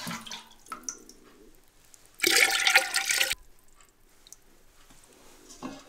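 Brine in a stoneware sauerkraut fermenting crock splashing loudly for about a second, starting about two seconds in, with faint trickles and drips around it.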